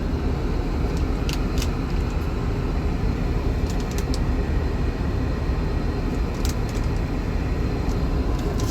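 Steady low rumble of Airbus A380 cabin noise, with a few faint clicks.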